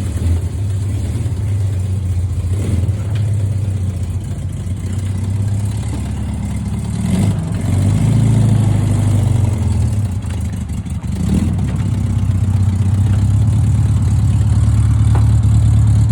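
Volkswagen Beetle engine running just after being started on a battery that had gone flat, idling with a couple of brief revs around the middle, then running steadily and a little louder near the end.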